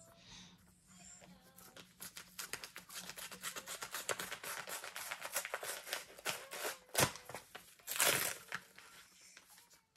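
Paper envelope being torn open by hand: a quick run of fine crackling and ripping from about two seconds in, a sharp snap near seven seconds, then a short rustle of paper as the sheet inside is pulled out.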